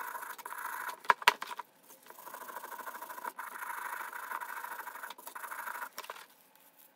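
Wire brush scrubbing the steel toothed jaw of a pipe wrench in a tub of degreaser, a steady scratchy scraping in quick strokes. Two sharp knocks come about a second in, the scrubbing pauses briefly near the two-second mark, and it stops near the end.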